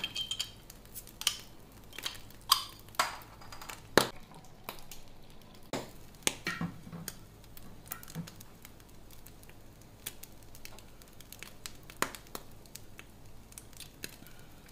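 A glass beer bottle opened with a bottle opener: a sharp pop with a brief ring at the start. Scattered clinks and taps of bottle and glass follow as the beer is poured out, the loudest about four seconds in.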